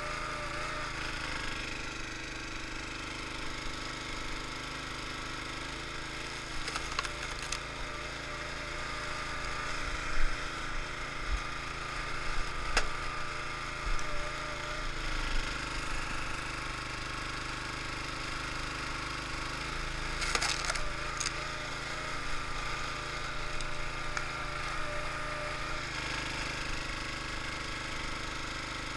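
Small gas engine of a hydraulic log splitter running steadily while oak rounds are split, with the wood cracking and splintering as it gives way, the sharpest cracks about ten seconds in and again around twenty seconds.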